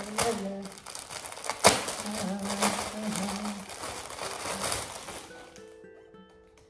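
Clear plastic packaging bag crinkling and crackling as it is handled around a plush item, with one sharp, louder crackle about a second and a half in. Soft plucked guitar music comes in near the end.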